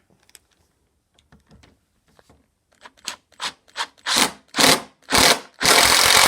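Cordless drill/driver sinking a fastener into the wooden bench top to mount a vise: a few faint clicks, then a series of short trigger bursts about every half second that grow longer, ending in a longer run.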